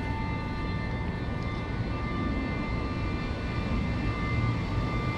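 A distant engine drones steadily, with a low rumble under several constant high tones.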